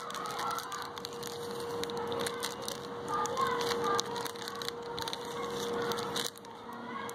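Foil-lined plastic wrapper of a chocolate wafer roll crinkling and crackling as it is torn open and peeled back by hand.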